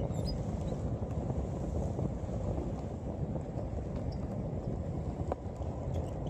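Steady wind rumble on the microphone over choppy sea water, with one faint click about five seconds in.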